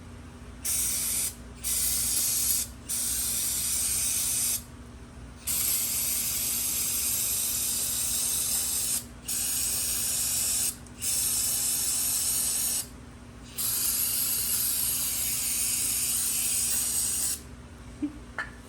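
Aerosol can of brake cleaner spraying in seven hissing bursts, from about half a second to several seconds each, with short pauses between. It is washing grease and metal debris off the front hub parts.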